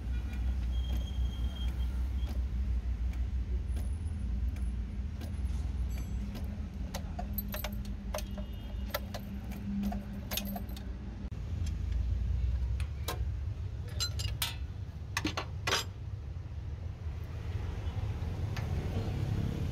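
Small metal parts and tools clinking and clicking, a scattering of sharp metallic knocks over a steady low rumble.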